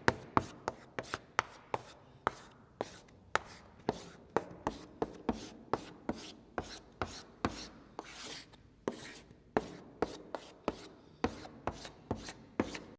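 Writing sound effect: a run of sharp taps, about two or three a second, with short scratchy strokes between them and one longer scratch about eight seconds in.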